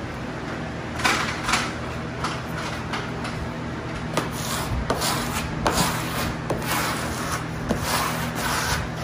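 A plastic wallpaper smoother swept again and again over pasted cork wallcovering: a series of irregular scraping swishes starting about a second in, with a few light ticks, over a steady low hum.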